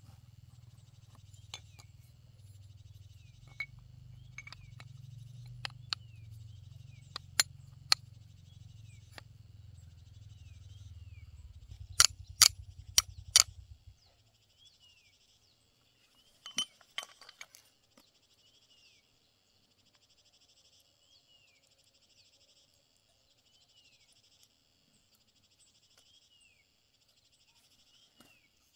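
Metal tools and parts clinking and tapping in scattered sharp clicks, with four loud clinks in quick succession about twelve seconds in. A low rumble underneath stops about two seconds later, leaving faint, evenly repeated falling chirps in the background.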